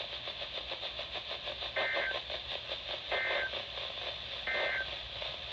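Weather radio receiver hissing with reception static between announcements, with three short two-tone electronic beeps about 1.3 seconds apart, at about two, three and four and a half seconds in.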